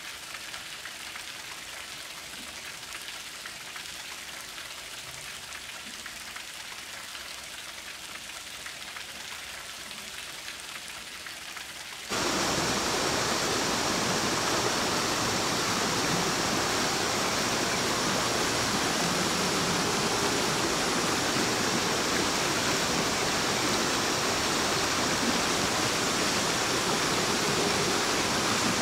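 Light rain pattering, then about twelve seconds in a sudden cut to the louder, steady rush of a small waterfall splashing over rocks into a stream pool.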